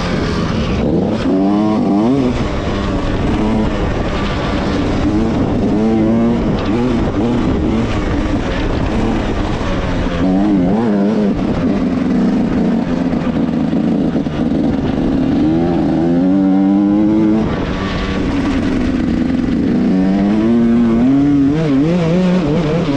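Yamaha YZ125X's 125cc two-stroke single-cylinder engine being ridden hard, its pitch climbing under throttle and dropping again and again.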